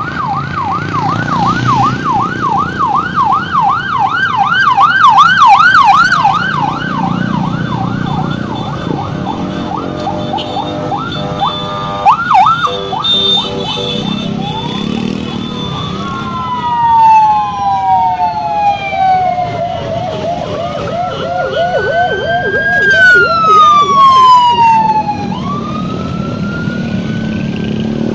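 Electronic vehicle sirens escorting a passing convoy: a fast warbling yelp for about the first nine seconds, then slow wails that fall, rise and fall again, with a second siren yelping over one of them and a return to the yelp near the end. Motorcycle engines run underneath.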